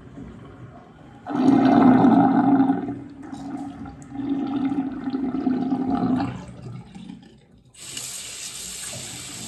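Water in a bathroom sink gurgling down the drain in two loud stretches, then the faucet turned on and running steadily near the end.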